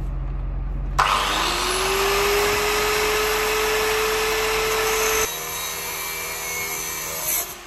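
Angle grinder cutting into a steel exhaust pipe. A steady low hum is heard first; about a second in the disc's whine rises and levels off under a loud, harsh hiss, which drops to a quieter, steadier grinding sound a little after five seconds and stops near the end.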